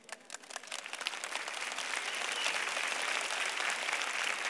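Studio audience applauding: scattered clapping that swells over the first two seconds into steady applause from many people.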